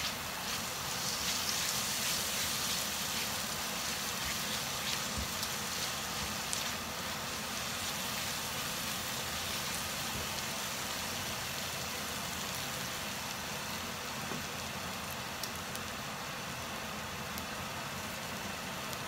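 Spice paste sizzling in hot oil in a non-stick wok: a steady frying hiss, with a few faint taps of a silicone spatula as it is stirred.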